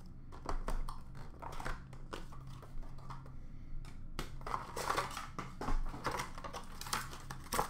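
Trading card box packaging being torn open and handled: paper and plastic wrapping crinkling and rustling, with many small sharp clicks from the cardboard box and a plastic case, over a faint steady hum.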